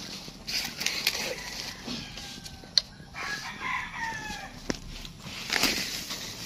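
A rooster crowing once about halfway through, a drawn-out call that falls in pitch, among rustling and sharp clicks.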